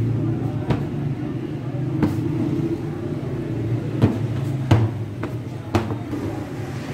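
Hands working balls of roti dough in flour on a metal worktop, with about six sharp knocks at uneven spacing as the dough is pressed and set down, over a steady low hum.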